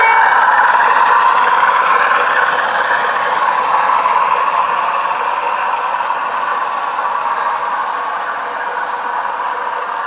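Model train running past: the locomotive's engine sound with the wheels rattling on the track, growing slowly fainter as the train moves away.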